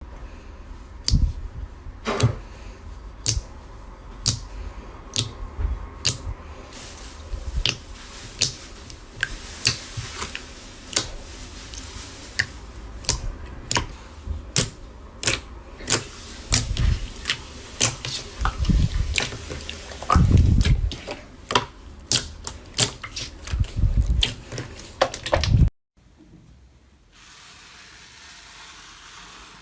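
Slime being handled and squeezed: a long run of crisp clicks and pops, with a few low thumps. The sound cuts off suddenly near the end, giving way to a quieter hiss.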